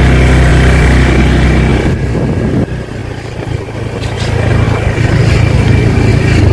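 Motorcycle engine running under way. It eases off for about a second in the middle, then picks up again.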